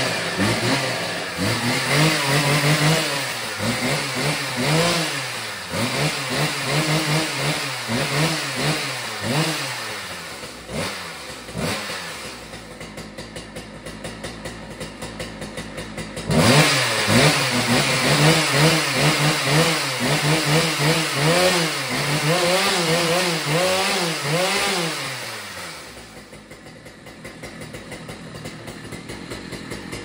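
Husqvarna 3120 XP two-stroke chainsaw running and revved in repeated short throttle blips, each a rising and falling whine, the throttle now answering after a new throttle cable. The revving drops to a lower running level about twelve seconds in, comes back suddenly a few seconds later, and settles to idle near the end.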